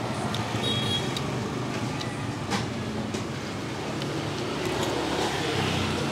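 Street traffic passing close by: a steady engine hum from passing vehicles that swells near the end as one comes nearer. There is one sharp click about two and a half seconds in.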